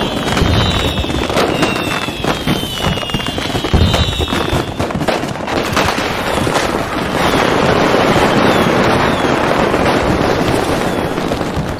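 Fireworks display: a rapid string of bangs and pops, with several whistling rockets falling in pitch in the first few seconds, then a dense stretch of crackling in the second half.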